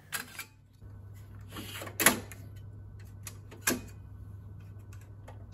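Hot-swap fan modules of an HP DL785 G5 server being tilted out of their cage: a handful of sharp plastic-and-metal clicks and knocks, the loudest about two seconds in and another near four seconds. A low steady hum sits underneath.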